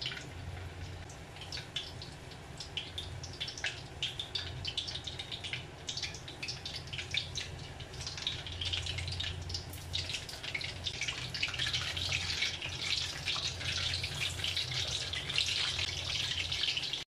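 Steamed chicken leg quarters sizzling and crackling as they deep-fry in hot oil in a stainless steel wok, the crackle growing denser and louder as more pieces go in.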